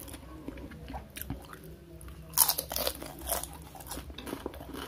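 Crunching and chewing of a crisp rempeyek (peanut cracker) being eaten: a run of small sharp crackles, with louder crunches about halfway through and again a second later.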